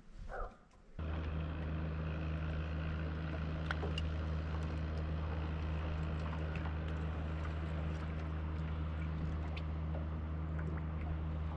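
A boat motor comes in suddenly about a second in and runs with a steady low hum.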